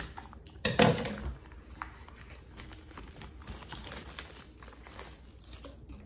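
Scissors cutting through the seal label on a small paperboard product box, then crinkling and light clicking of the box being handled and worked open. The loudest rustle comes about a second in.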